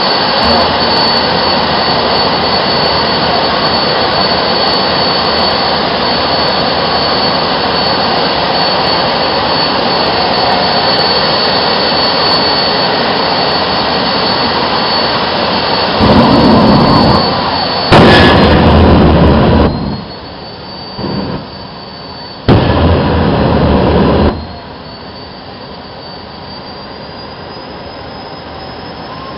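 Jet engine of a jet-powered drag car running at the start line: a steady loud roar with a high whine. In the second half three still louder surges come, each a second or two long, after which the roar drops back and the whine slowly climbs in pitch.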